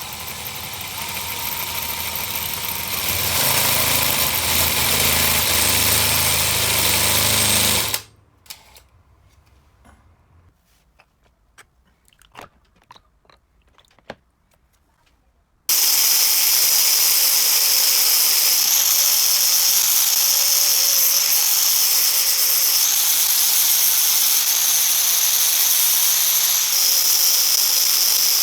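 Power tools in a workshop: a motor with a low hum winds up and runs for about eight seconds, then cuts off suddenly. A few clicks and knocks follow, then about halfway through a loud, steady, high-pitched hissing grind starts and runs on.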